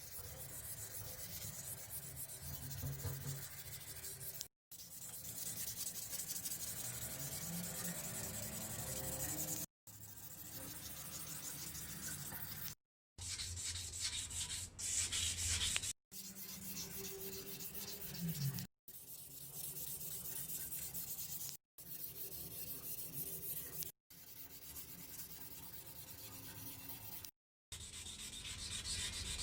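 Sandpaper scraping against a bike frame in quick strokes, broken every few seconds by abrupt short silences.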